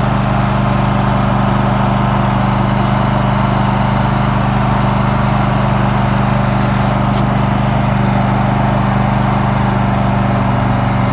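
Riding lawn mower engine running steadily at a constant speed while the mower stands still.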